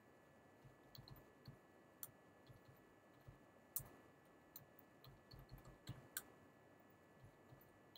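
Faint, irregular clicks of typing on a computer keyboard, close to silence.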